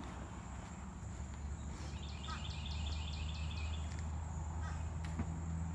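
A domestic fowl gives a rapid rattling call of about seven notes a second, starting about two seconds in and lasting under two seconds, over a steady low rumble.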